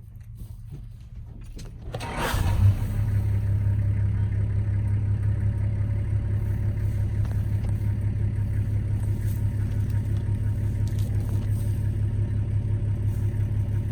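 A vehicle engine starts about two seconds in, then idles steadily.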